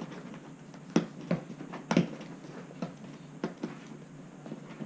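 Fingers picking and scratching at the tape sealing a cardboard Lego box, making irregular taps and clicks, the sharpest about one and two seconds in.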